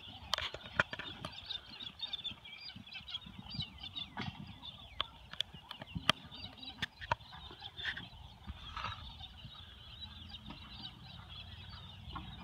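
A flock of birds chattering and squawking together, with wind rumbling on the microphone and scattered sharp clicks and knocks.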